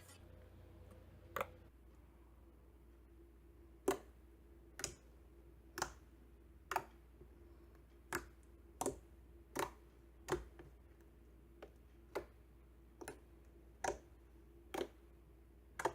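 Clicky glossy slime being pressed and worked by hand, giving sharp little clicks and pops about once a second, a little unevenly spaced.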